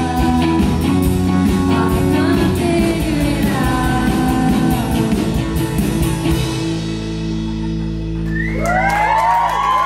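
Live band playing a rock song, a woman singing over guitar and drum kit. About six and a half seconds in the band stops on a held final chord, and near the end the audience starts cheering.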